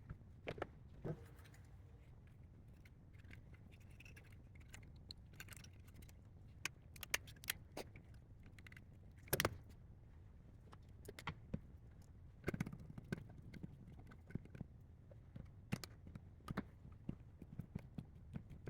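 Faint, scattered clicks, taps and light rattles from handling the i-MID screen housing and its small parts, with a sharper click about nine seconds in and a quick run of taps about twelve seconds in, over a faint low hum.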